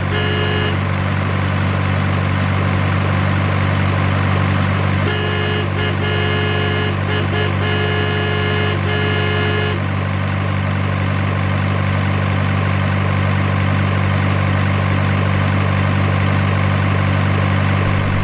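Steady low rumble of a truck engine sound effect, unchanging throughout. It carries a run of short, repeated toots between about five and ten seconds in, and a brief one at the start.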